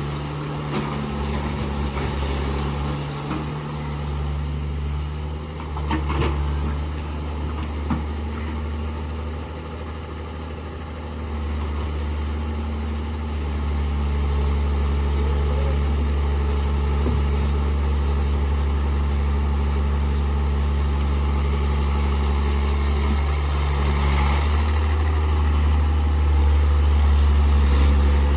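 Heavy diesel engine running steadily, growing louder about halfway through and again near the end, with a few brief knocks early on.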